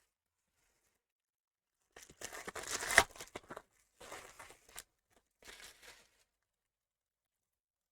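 Card packaging being torn open and handled: three bursts of tearing and crinkling, with a sharp click about three seconds in.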